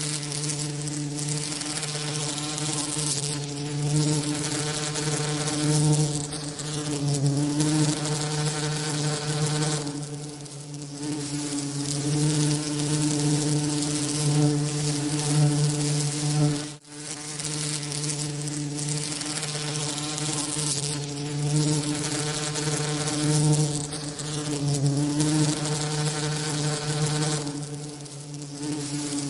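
Bee wingbeat buzzing played as a mixed-frequency tinnitus masking sound: a continuous low buzz with stacked overtones over a hiss, swelling and easing every few seconds, with a brief drop a little past halfway.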